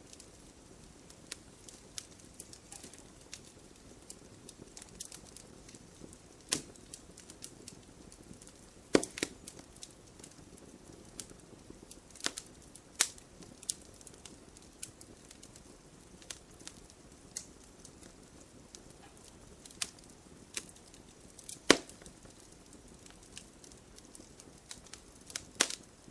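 Wood fire crackling: a soft steady hiss with many scattered sharp pops of burning wood, a few of them much louder than the rest.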